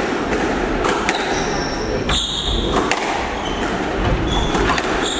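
A squash rally: the hard rubber ball knocks sharply off rackets and the court walls about once a second, with short high squeaks of court shoes on the wooden floor. The sound echoes in the enclosed court.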